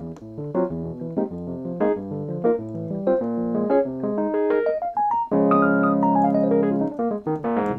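Electric piano sound from an iPad app, played from a MIDI keyboard: a quick flow of chords and melody notes, then a chord held about five seconds in with a descending run of notes over it.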